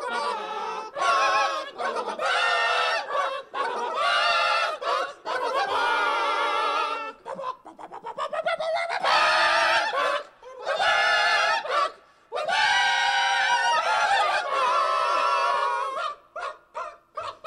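A series of pitched, voice-like calls that waver in pitch, each lasting one to two seconds, separated by short gaps.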